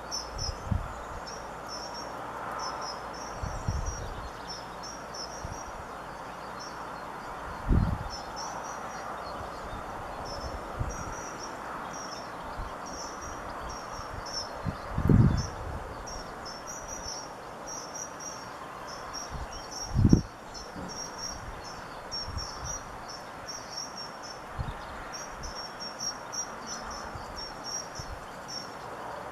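European goldfinches twittering: runs of quick, high chirping notes repeated with short breaks, over a steady background hiss. A few dull low thumps stand out louder, about a third of the way in, halfway, and around two-thirds of the way through.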